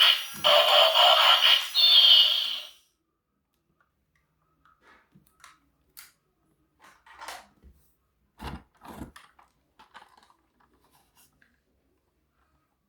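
A loud sound with a steady high tone, broken twice, stops sharply about three seconds in. Then come faint, scattered clicks, rustles and scrapes of toy packaging being handled, with two soft thumps about halfway through.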